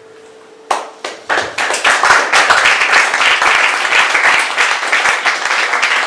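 Audience applause: two or three scattered claps about three-quarters of a second in, then many people clapping together from about a second and a half in.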